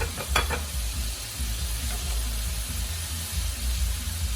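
Flour-coated chicken wings frying in hot oil, a steady sizzle, with a couple of short clicks about half a second in.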